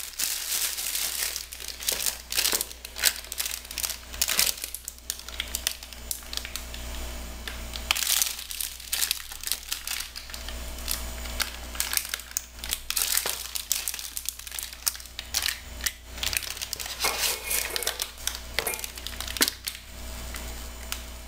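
Plastic piping bag crinkling and rustling in irregular bursts as it is handled and filled with thick batter, with a spoon scraping against a plastic mixing bowl.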